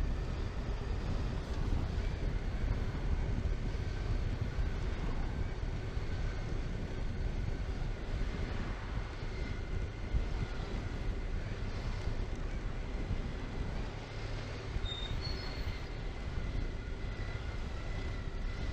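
Honda Pan European motorcycle on the move: steady engine and wind noise heard through a helmet-mounted camera microphone, with no sharp events.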